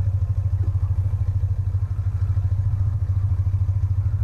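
BMW Airhead air-cooled flat-twin (boxer) motorcycle engine idling, a steady low exhaust throb with even, rapid pulses.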